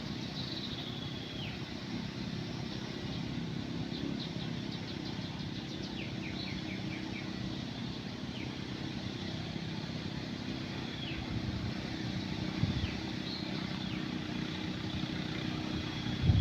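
An engine running steadily at a low, even drone, with birds calling over it: high notes sliding downward every few seconds and a couple of quick runs of short notes.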